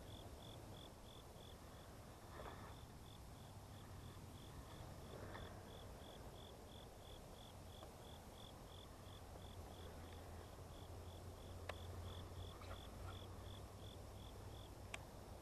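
An insect chirping faintly and evenly, a high-pitched pulse about three times a second, which fades out a few seconds before the end.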